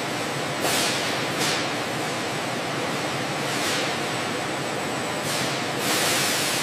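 Gloved hands pressing and smoothing a mesh liner and foam padding onto a boot panel, heard as about five soft swishes over steady background noise.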